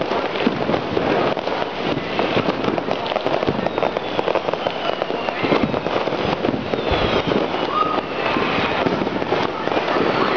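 Dense, unbroken crackling of many firecrackers and fireworks going off at once all around, at a steady loud level. A few whistles that fall in pitch cut through the crackle.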